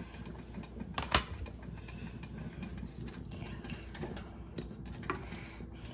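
Kitchen handling sounds over a steady low rattling hum, with a sharp knock about a second in and another near the end, as onions and potatoes go into a pot of beef broth.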